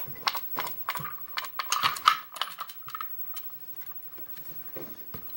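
Light metallic clicks and clinks of a lock and a pinning tray being handled on a table. They come thick and fast for the first three seconds, then thin out to a few faint taps.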